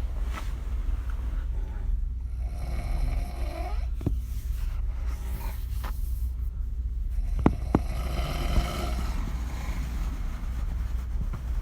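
A woman snoring on her back with her mouth open: two long snoring breaths about five seconds apart, over a steady low hum, with a few short sharp clicks in between.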